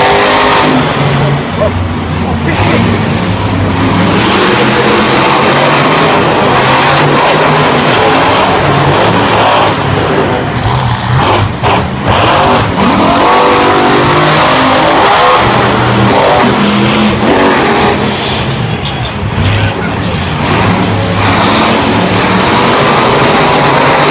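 Monster truck engines, supercharged big-block V8s, running loud and revving up and down as the trucks drive and jump.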